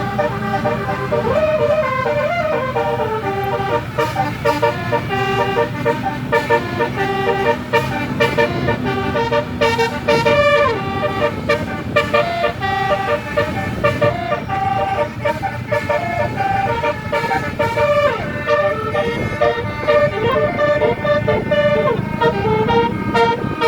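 Telolet multi-tone bus horns playing quick melodic runs, the notes stepping up and down several times a second, over the steady low rumble of the bus engine.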